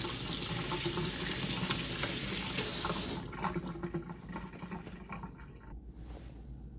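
Kitchen tap running while hands are washed under it; the water is shut off about three seconds in, leaving a few faint drips and knocks.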